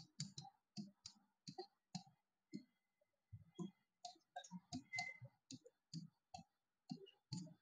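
Marker pen writing on a board: faint short strokes and taps, a few a second, with a thin high squeak of the tip twice.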